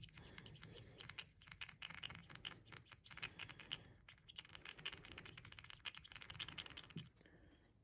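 Faint rapid clicking and scraping of a small metal stirrer against a plastic bottle cap as a few drops of airbrush paint are mixed in it; the clicking stops shortly before the end.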